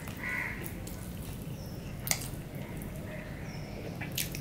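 Eating with the fingers: khichuri rice being worked by hand on a plate, with one sharp click about two seconds in and more clicks near the end as a mouthful goes in. A bird calls near the start, with faint chirps behind.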